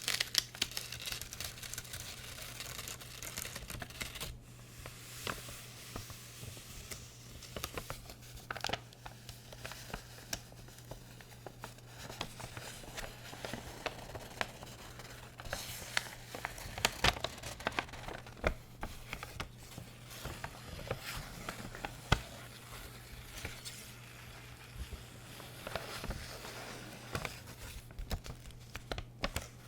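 Packaging crinkled and handled close to a sensitive microphone as an ASMR trigger: an irregular run of crackles and sharp ticks.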